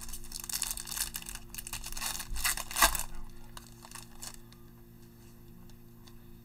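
Foil wrapper of a football trading-card pack torn open and crinkled by hand, a dense crackling for about three seconds, loudest near its end. A few light ticks follow as the cards are pulled out.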